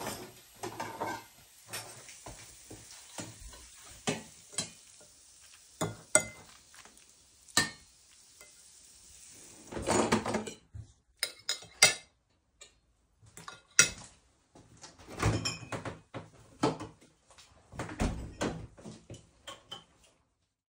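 Scattered clinks and clatters of metal kitchenware and cutlery against dishes, over a faint steady hiss that stops about halfway through.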